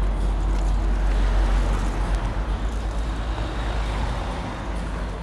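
Road traffic: a motor vehicle passing close by, a low rumble with tyre and engine noise that swells and then eases off.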